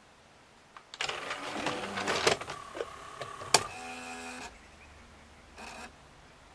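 Motorized disc tray of a Sony MDP-533D laserdisc player closing with a CD on it: a rattling mechanical run, a sharp click about three and a half seconds in, then a short motor whine that stops about a second later.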